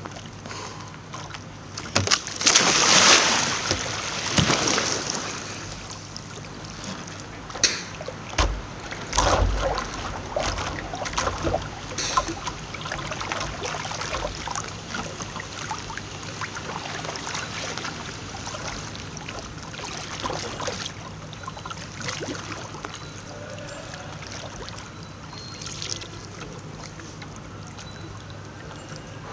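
Water splashing around a kayak and its double-bladed paddle. A loud splashing rush comes a couple of seconds in, and sharper splashes and knocks come around ten seconds in. After that, quieter paddle strokes and lapping water.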